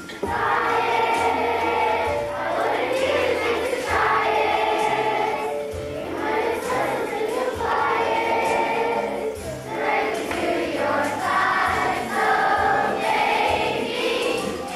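A large children's choir singing a song in unison over a low instrumental accompaniment, in phrases of held notes.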